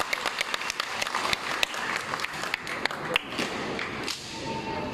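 Scattered clapping from a crowd in a large gymnasium hall, thinning out over the first three seconds or so, then a low crowd murmur with a faint steady tone near the end.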